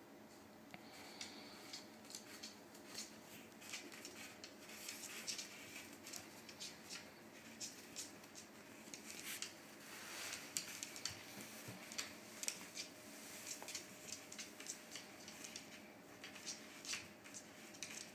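Faint, irregular ticks and scuffs of cats' paws and claws shifting on a wooden floor as one cat mounts and treads on another, with a steady low room hum underneath; no yowling or other cat calls.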